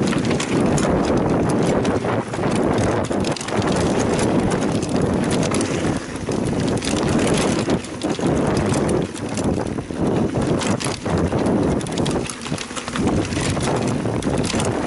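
Mountain bike descending a rough trail: a steady rush of tyre and wind noise on the microphone, with constant rattling and sharp knocks from the bike over the bumps.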